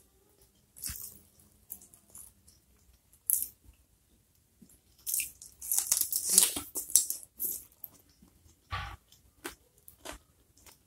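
Close-up mouth sounds of biting and chewing juicy stir-fried pineapple chunks, with a run of wet crunching loudest about five to seven and a half seconds in. Small clicks and smacks are scattered around it as the fingers pick food from the plate.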